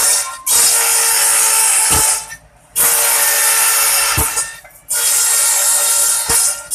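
Small electric satay-skewer machine running, with skewer sticks fed through it in repeated loud, hissing-grinding passes of about two seconds each, separated by brief lulls, over the steady whine of its motor.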